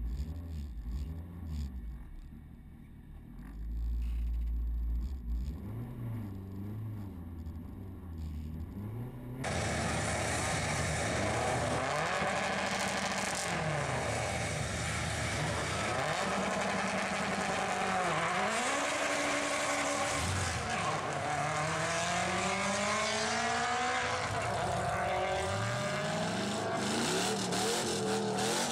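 Turbocharged Honda K-series four-cylinder in a Civic hatchback, first heard from inside the cabin, its revs wavering at the line. About nine seconds in, it is suddenly much louder and plainer: the car launches down a drag strip, its pitch climbing and dropping through several gear changes as it pulls away.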